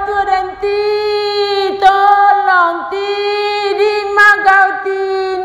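A high voice singing a slow, unaccompanied-sounding melody of long held notes, each broken off by a quick downward slide.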